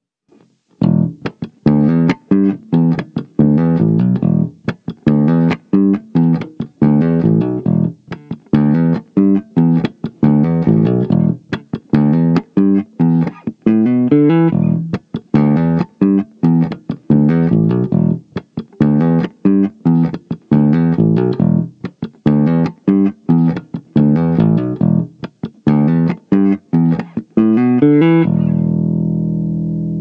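Ibanez BTB 775 five-string electric bass played fingerstyle on the neck pickup alone, recorded direct: a busy line of quick plucked notes starting about a second in, ending near the end on one long held note left to ring.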